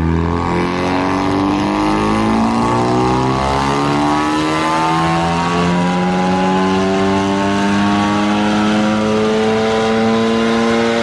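2014 Ford Focus ST's turbocharged EcoBoost four-cylinder, fitted with a big Garrett GTX2867R Gen 2 turbo, at full throttle on a chassis dyno: one long pull in a single gear, the engine note rising steadily as the revs climb.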